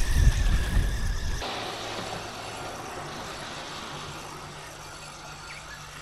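Wind rumbling on the microphone over a large spinning reel being cranked in, with a steady high whine. About a second and a half in it cuts suddenly to a much quieter retrieve, the reel now with its shielded bearings cleaned and regreased.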